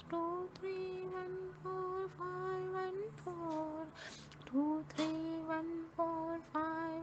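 A woman's voice chanting the number code 2314514 in a slow sing-song tune, each digit a short held note, with a faint steady low hum underneath.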